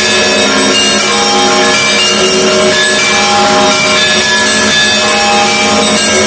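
Russian Orthodox church bells ringing a peal: many bells of different pitches struck one after another in quick succession over the steady hum of the lower bells.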